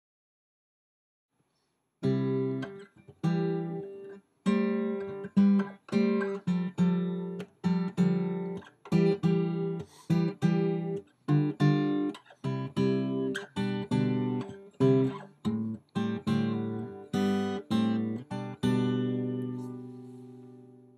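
Acoustic guitar music, with chords strummed in a steady rhythm, starting about two seconds in after a short silence and ending on a last chord that rings out.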